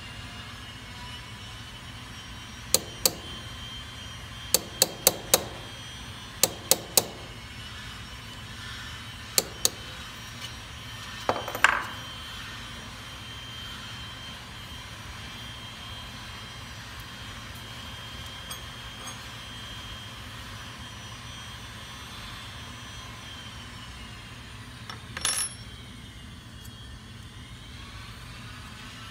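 A hammer striking a steel rivet-setting punch to set a rivet through copper sheet: short, sharp taps in quick groups of two to four through the first ten seconds, then a louder strike with a brief metallic ring, and one more short burst of blows near the end.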